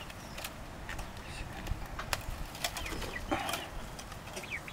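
Scattered soft clicks and knocks over a low background, with a short faint bird call about three seconds in.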